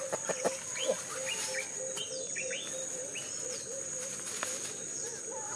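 Outdoor insect drone, a steady high-pitched hum like crickets or cicadas, with birds chirping here and there and a low note repeated about three times a second through the middle. A few dry crackles at the start as dry grass is handled.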